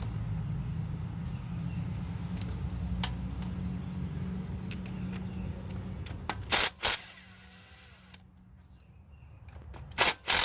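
A steady low rumble that stops about seven seconds in, with sharp clacks from engine parts being worked loose: two quick ones at about six and a half seconds and two more near the end, as a part pops out of place.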